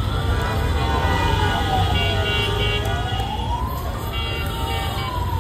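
Emergency vehicle siren wailing, its pitch slowly rising and falling and peaking near the start and again about four seconds in, over a steady low traffic rumble.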